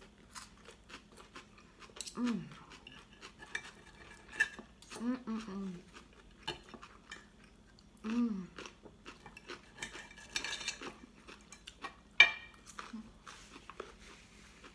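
Knives and forks clinking and scraping on dinner plates as beef is cut and eaten, a sharp clink about twelve seconds in, with a few brief hums from the diners.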